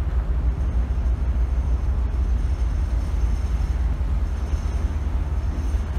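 Ferry underway, heard from the open deck: a steady low rumble of wind on the microphone over the ship's engine noise, with a faint high whine from about half a second in.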